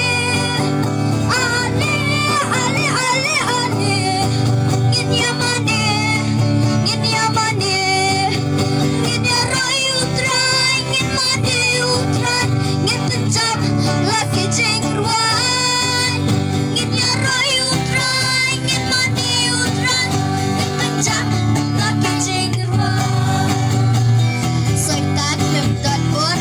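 A girl singing a worship song through a PA microphone, with amplified guitar accompaniment and a steady bass line.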